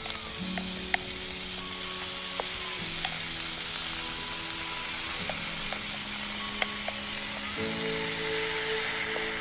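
Chicken and sauce sizzling in a cast iron skillet over a campfire as vegetables are added, with a few light clicks of utensils against the pan. Soft background music with slow held chords plays underneath.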